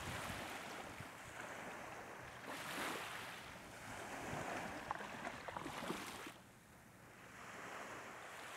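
Surf washing on a beach: a soft hiss that swells and fades several times, dipping shortly before the end, with a few faint ticks around the middle.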